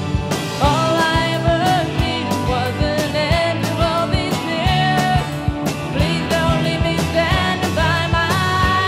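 Late-1980s indie rock recording: a steady drum beat under bass and electric guitars, with a melody line that bends in pitch above them.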